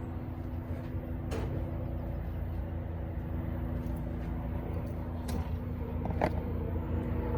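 Steady low drone of a running engine, holding a few even tones, with three sharp clicks: one about a second in, and two more around five and six seconds in.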